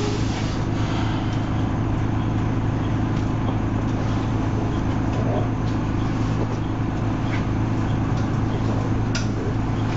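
Leyland Lynx Mk2 bus's Cummins L10 diesel engine running at a steady speed, heard as a steady low drone inside the passenger saloon. A single click comes about nine seconds in.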